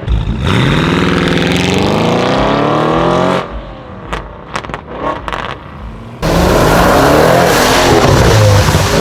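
Audi RS6 engine accelerating hard, its note climbing steadily for about three seconds before cutting off suddenly. A scatter of sharp exhaust pops and crackles follows. About six seconds in, the engine starts again loud and abruptly, revving up and down.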